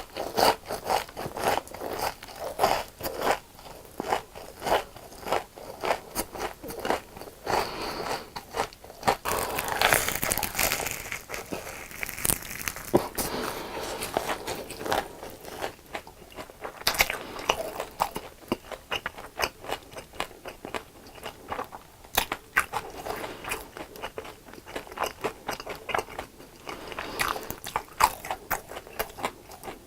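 Crunchy deep-fried food bitten and chewed close to the microphone: a dense, continuous run of crisp crunches and crackles.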